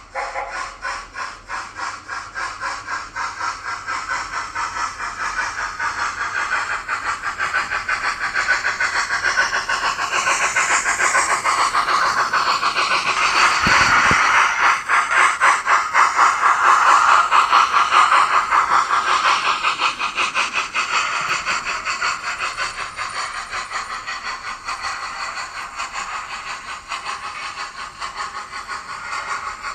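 Dapol A4 model steam locomotive's sound decoder playing a rapid, even run of steam chuffs over a hiss, growing louder to a peak about halfway and then fading.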